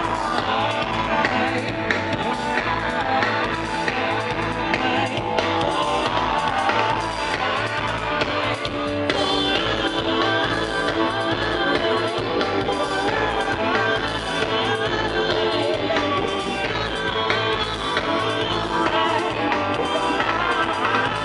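Live reggae band playing through the festival PA: drum kit, bass and electric guitar keeping a steady groove.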